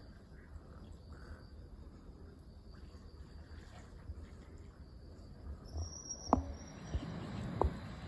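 Faint steady background noise; near the end it grows louder and three short, sharp knocks sound.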